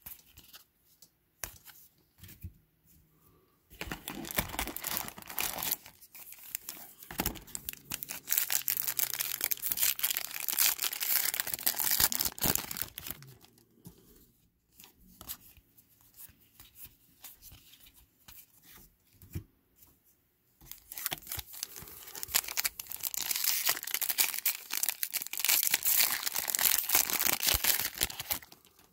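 Trading card packs being torn open and their wrappers crinkled by hand. The tearing and rustling come in two long stretches, one starting about four seconds in and one about three-quarters of the way through, with quieter handling of cards between.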